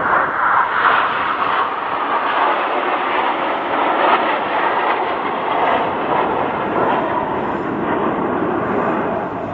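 Formation of Aermacchi MB-339 jet trainers passing overhead, their Rolls-Royce Viper turbojets making a steady, loud rushing jet noise.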